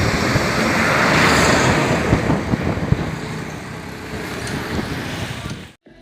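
Street traffic noise with wind buffeting the microphone, swelling about a second in and easing off, then cutting out suddenly near the end.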